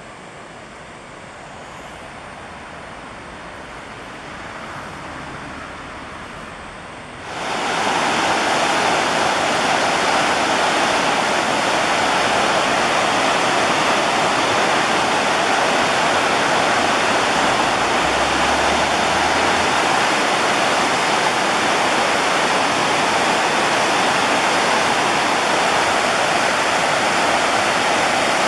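Shallow river water rushing over rocks in a steady loud rush. It is quieter at first and jumps up abruptly about seven seconds in.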